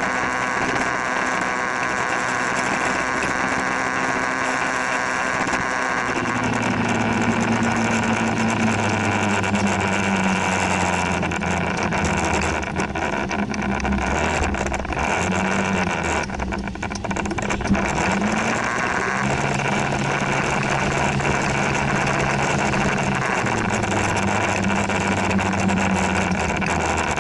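Scooter engine running while riding, with wind and road noise. Its pitch rises about six seconds in, dips and wavers in the middle as it slows and speeds up again, then holds fairly steady.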